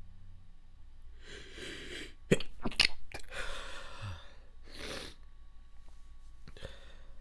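A person's wet, stifled sneezes: a breathy intake, then three sharp held-in sneezes in quick succession about two seconds in, followed by breaths.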